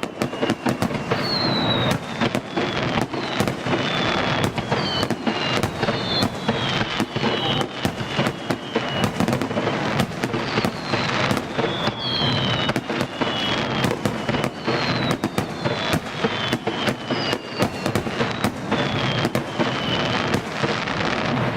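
Fireworks display: a dense run of bangs and crackling bursts, with repeated high whistles that each fall in pitch over them.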